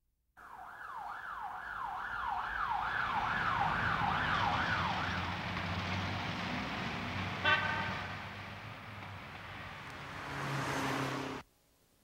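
Siren sound effect wailing in a fast repeating cycle, about twice a second, over a bed of city traffic noise, fading out after about five seconds. A short toot comes about seven and a half seconds in, then a swelling rush of sound cuts off abruptly about half a second before the end.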